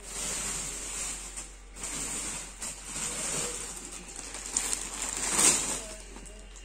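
Rustling as a stole is handled and unfolded, coming in uneven swells, loudest about five seconds in.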